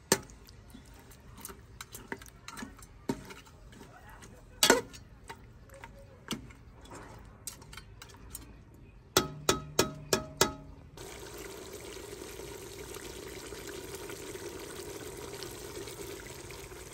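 A slotted metal spoon stirring meat in an aluminium pressure cooker, scraping and knocking against the pot, with a quick run of about five sharp clanks about two-thirds of the way in. After that, a steady hiss of the meat cooking in its liquid in the pot.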